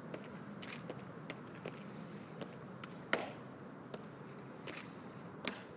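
Guards' shoes clicking on the stone plaza as three soldiers march. The clicks are sharp and uneven, with a louder one about three seconds in and another near the end.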